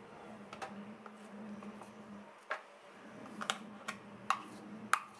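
A steel spoon taps and scrapes as thick ground urad dal batter is scooped from a steel mixer-grinder jar into a plastic bowl. It makes a series of light, sharp clicks, most of them in the second half.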